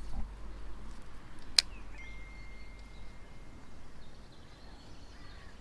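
Baitcasting reel during a cast: one sharp click about a second and a half in, as the reel is engaged. A thin steady whistle follows for about a second and a half over faint outdoor background.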